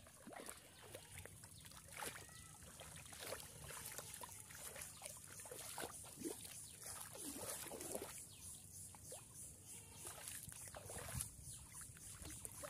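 Hands and a thrashing catfish splashing and sloshing in shallow muddy water, a run of small irregular splashes as the fish is grabbed by hand.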